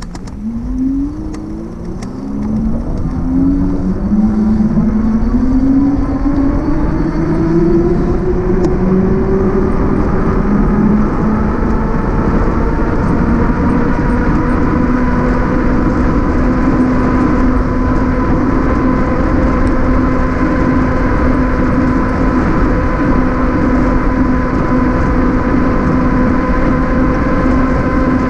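Electric bike's hub motor whining, its pitch climbing in several rising steps over the first ten seconds as the bike picks up speed, then holding steady at cruising speed. Under it runs a constant low rush of wind and road noise.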